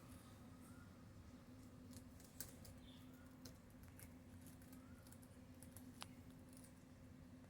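Near silence: a few faint, sharp clicks and soft, short chirps from pet parrots over a low steady hum.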